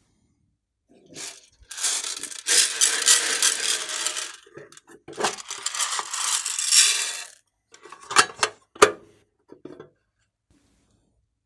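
Small beads rattling out of a tin box in two long pours, followed by a couple of sharp clicks near the end.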